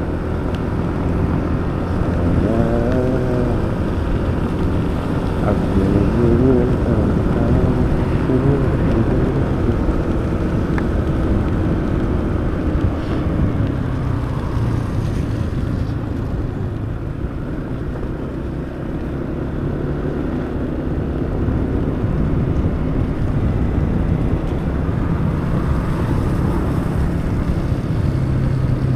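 Motor scooter being ridden at a steady 40 km/h or so on a wet road: a steady engine hum under wind and tyre noise.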